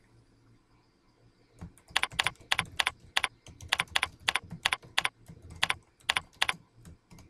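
Typing on a computer keyboard. After about a second and a half of quiet, quick runs of sharp keystrokes follow, with short pauses between the words.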